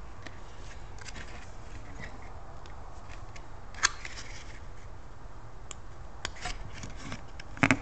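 Hands and tools working on a blown subwoofer's cone and voice-coil assembly during teardown: scattered light clicks and rubbing, with a sharp snap about four seconds in and a louder one near the end.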